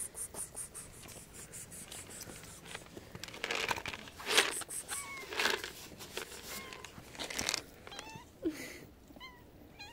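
Street cats meowing, short bending calls once around the middle and several more in quick succession near the end. Between them come scuffing and rustling noises, the loudest a sharp rustle about four seconds in.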